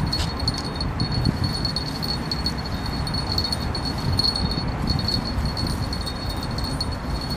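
Wind buffeting the microphone with a steady low rumble, over a thin, high jingling ring with faint quick ticks.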